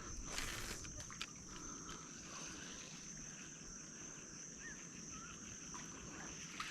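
Steady high-pitched insect drone from the surrounding mangroves, with a brief rustle about half a second in, a few faint clicks, and two short bird chirps near the end.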